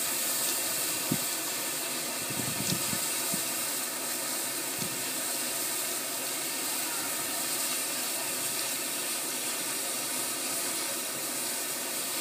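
Steam locomotive at rest with steam hissing steadily from it, a constant, bright hiss. A few dull low knocks sound in the first few seconds.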